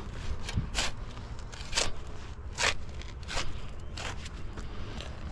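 Short scraping strokes, about six spaced roughly a second apart, of a hand tool working in soil and roots, over a low steady rumble.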